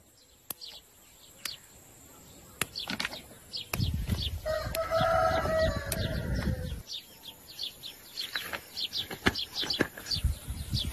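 Yardlong beans being snapped by hand into pieces, a crisp snap every second or so, while small birds chirp. About four seconds in, a rooster crows for about three seconds, the loudest sound.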